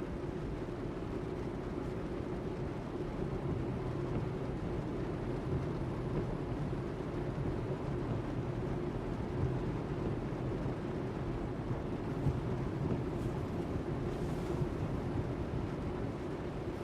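Steady engine hum and tyre wash from inside a car driving slowly through shallow floodwater.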